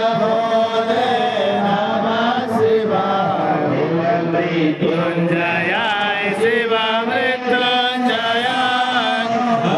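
Voices chanting Sanskrit Vedic mantras in a continuous, melodic recitation without a break.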